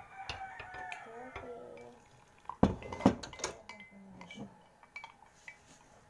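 A spoon stirring a powdered milk drink in a glass and knocking against its side: two loud clinks about half a second apart near the middle, with lighter taps around them.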